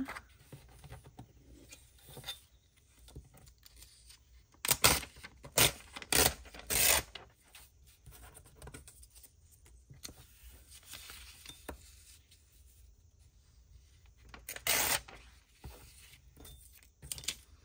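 A paperback book page being torn by hand: a run of short rips about five to seven seconds in and one more near fifteen seconds, with quiet rustling and rubbing of paper between.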